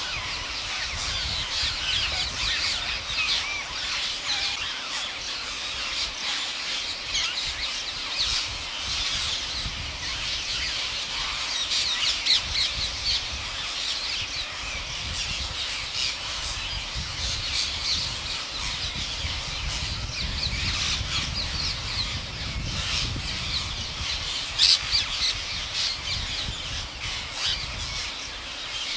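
Green parrots squawking and chattering in rapid, overlapping short calls, with a few louder squawks about 12 and 25 seconds in and a low rumble underneath.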